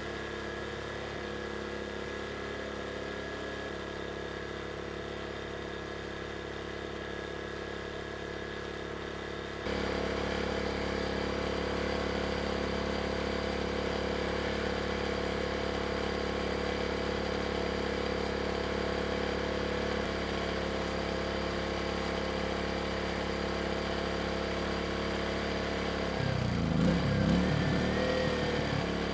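Erayak 4500PD dual-fuel inverter generator's 150cc engine running steadily on propane with the load taken off. The sound steps up suddenly about a third of the way through, and a brief, louder irregular noise comes in near the end.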